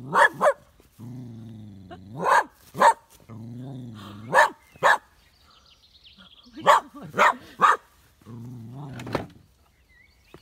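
Small Westie terrier barking at its own shadow: low growls of about a second each, every one followed by two or three short, sharp barks, about ten barks in all.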